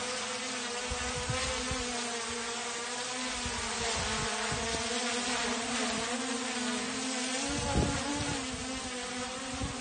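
DJI Mini 3 Pro drone hovering low, its four propellers giving a steady buzzing whine that wavers slightly in pitch.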